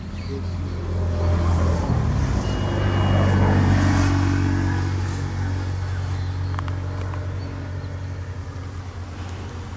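A motor vehicle's engine running as it passes: it swells over the first couple of seconds, is loudest near the middle, then slowly fades away.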